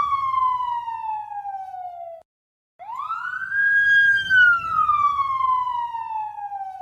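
Police car siren put through a Doppler shift effect set to pass from right to left. The single tone slides steadily down and cuts off about two seconds in. After a short gap it starts again, rises quickly, holds, then glides down as if the car were passing by, with a faint low rumble beneath.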